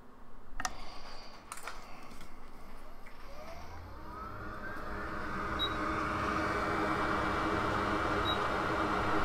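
A few light clicks, then a hot air rework station starting up: a whine rising in pitch as its fan comes up to speed, settling into a steady rush of air. It is blowing over the M92T36 charging IC to solder it onto the board.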